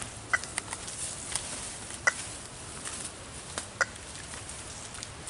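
Radio telemetry receiver beeping with each pulse from a tagged eastern box turtle's transmitter, one short chirp about every 1.7 seconds. The signal is strong, meaning the turtle is close. A few sharp clicks come in between the chirps.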